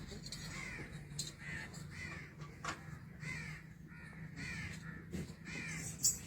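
Crows cawing over and over in short arched calls, about one every half second or so, over a steady low hum.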